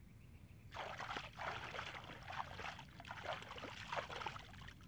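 Hands splashing and churning in shallow, muddy water, a quick irregular run of splashes beginning less than a second in.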